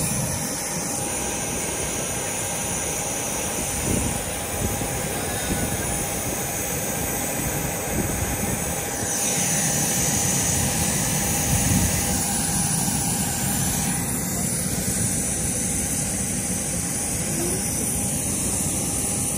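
Airliner jet engines running steadily, a broad rushing rumble with a thin high whine through the first half or so.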